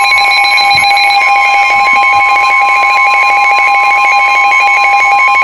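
NOAA Weather Radio warning alarm tone: a loud, steady 1050 Hz tone, layered with a second, rapidly pulsing electronic beep. It is the alert that marks an incoming warning broadcast, here a tornado warning.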